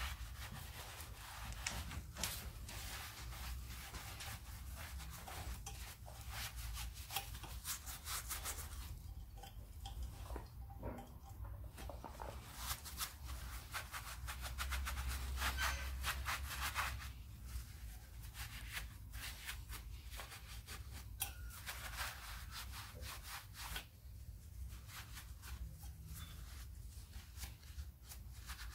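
A cloth rag rubbing and wiping a Land Rover Defender's handbrake back plate in many short, irregular strokes, cleaning the shoe contact points.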